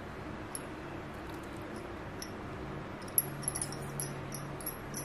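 Quiet kitchen background with a faint steady hum, and a few light clicks in the last two seconds.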